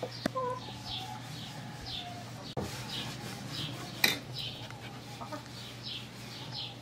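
Farmyard birds: a hen clucking and a small bird giving short falling chirps over and over, about one or two a second. Two sharp knocks cut in, the louder one about four seconds in.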